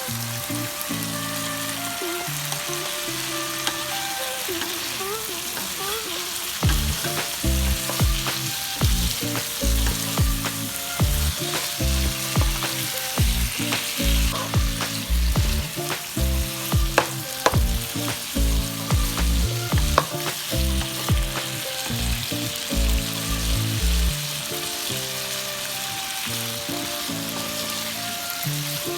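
Stir-fry sizzling in a hot wok as it is stirred, with the spatula scraping and knocking against the pan. Background music with a bass line plays over it for much of the time, dropping back near the end.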